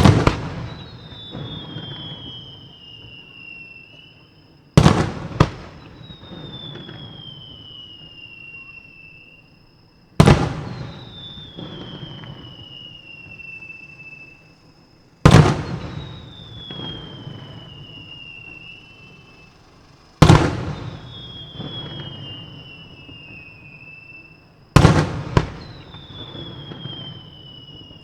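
Aerial firework shells bursting about every five seconds: six loud bangs, two of them followed closely by a second report, each trailing off into a rumbling echo that fades over several seconds.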